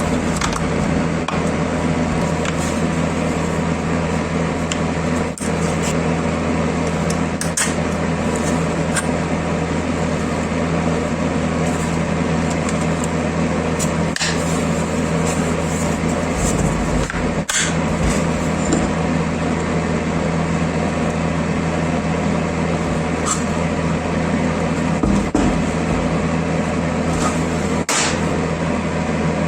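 A power tool's electric motor running steadily with a constant hum, broken by a few short clicks.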